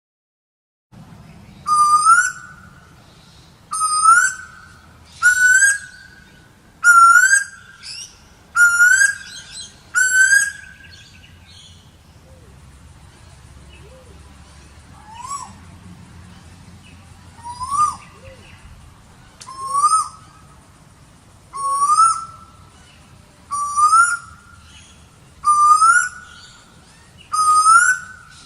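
Asian koel calling: a series of loud, whistled notes, each rising and then levelling off, repeated about every one and a half to two seconds. In the middle the calling drops to a few fainter, scattered calls for several seconds, then the steady series resumes.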